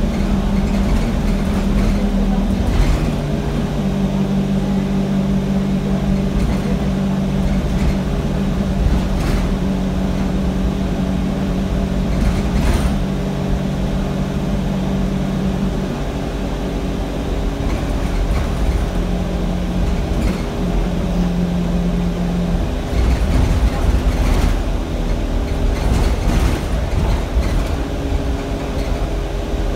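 Alexander Dennis Enviro 200 single-deck bus heard from the rear seats while driving: its diesel engine runs steadily under load, its tone stepping to a new pitch three times as the bus changes speed and gear, over a constant low road rumble with a few short body knocks and rattles.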